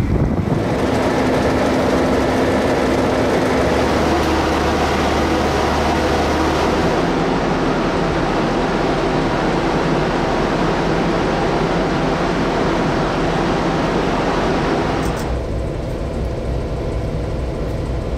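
KiwiRail DC-class diesel-electric locomotive running, a steady loud engine noise with a held low tone in the first few seconds. About fifteen seconds in the sound cuts abruptly to a duller, muffled running noise.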